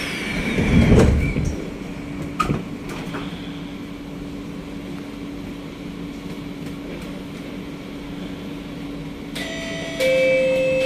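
The doors of a C151A metro train slide shut with a heavy thud and rush of air just after the door-closing beeps, then the stopped train hums steadily. About nine to ten seconds in, a steady electric whine of several tones sets in as the traction equipment starts the train moving.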